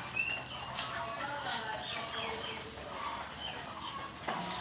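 Birds chirping and clucking: many short high calls, several falling in pitch.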